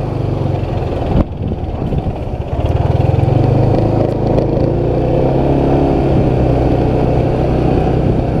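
Motorcycle engine running steadily while riding, growing louder about two and a half seconds in.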